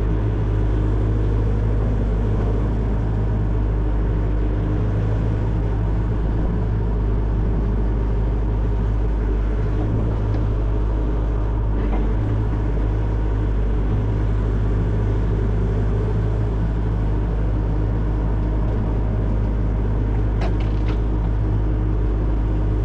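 Excavator's diesel engine running steadily, with a couple of light clicks near the end.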